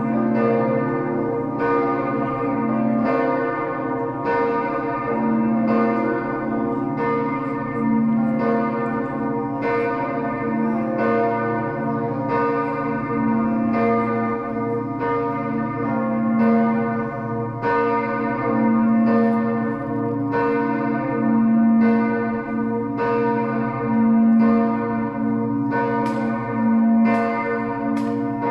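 Full peal of the twenty bells of the Stiftskirche in Herrenberg, all ringing together. Strikes of different pitches overlap without pause, the tones of each bell hanging on under the next strikes.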